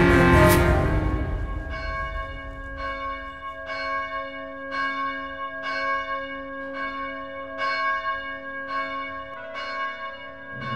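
Background music fades out over the first second or so. Then a single bell tolls at an even pace, about three strikes every two seconds, each strike ringing on into the next.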